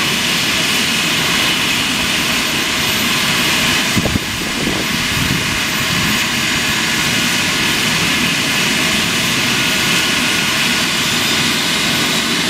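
Eurocopter EC135 twin-turbine helicopter running on the ground with its rotors turning before lift-off: a steady turbine whine over rotor noise. There is a brief bump about four seconds in.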